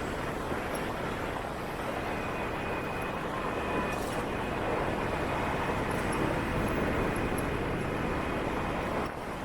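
Steady motorbike and street traffic noise heard from a scooter on the move, a continuous hum of engines and road noise that drops slightly near the end.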